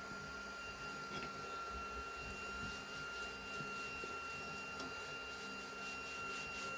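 Flashforge Adventurer 5M Pro 3D printer running steadily with a fan hum and a constant high whine while the nozzle preheats.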